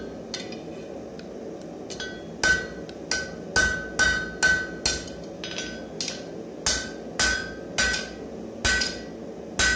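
Hand hammer blows on a red-hot steel bar on an anvil, forging it: after a pause of about two seconds, a steady run of strikes at roughly two a second, each with a short bright ring.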